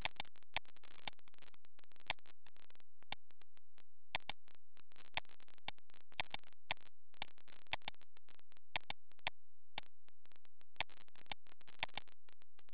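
Clicking at a computer: dozens of sharp, irregularly spaced clicks, some in quick pairs, over a faint steady low hum.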